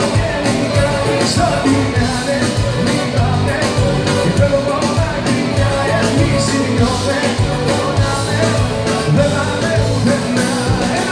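Live band playing Greek pop music through a PA, amplified guitars and drums keeping a steady beat.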